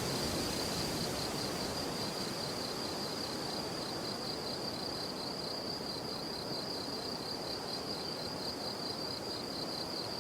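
Fried rice with chorizo frying in a pan on the stove, a steady sizzling hiss, with a cricket trilling steadily in the background.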